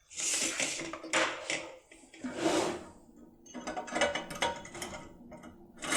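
Steel setting key and hook tool scraping and clicking inside a Securemme Technomax lever safe lock as the tool is worked and turned, in several short bursts of metal-on-metal rasping with a faint ring.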